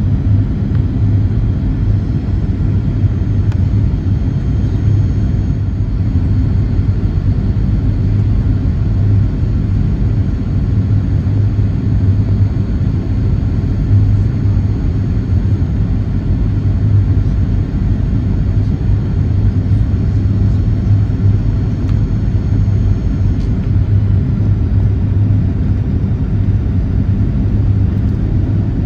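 Boeing 737-800 cabin noise: a steady low rumble of engines and airflow with faint high whining tones that fade out about two-thirds of the way through.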